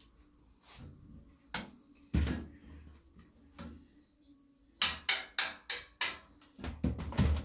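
Thin sheet-metal body of an electric heater knocking and clattering on a workbench as it is handled and tipped up on edge. There are two sharp knocks, then a quick run of about five knocks past the middle and more knocks near the end.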